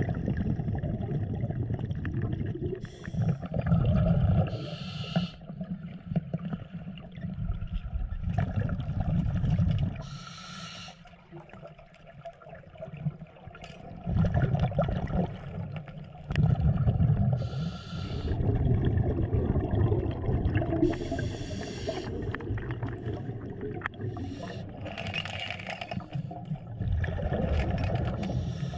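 Scuba breathing heard underwater: a diver's regulator breaths and bubbly exhalations every few seconds, over a low, muffled rumble of water moving against the camera.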